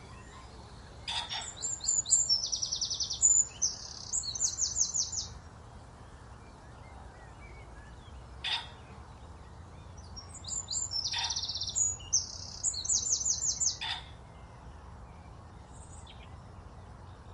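A songbird singing two phrases of rapid, high-pitched trilled notes, with three short sharp clicks or chips between them.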